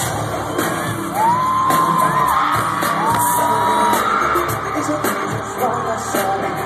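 Amplified pop song played live at a concert, recorded from inside the audience, with a voice singing over it and fans screaming and yelling.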